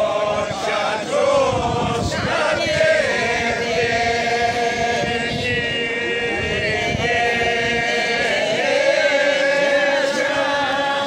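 A group of men singing a slow folk song together, unaccompanied, as they lead a line dance, with long drawn-out held notes.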